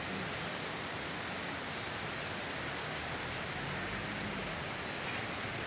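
Steady rushing of the Swat River in flood, an even noise with no breaks.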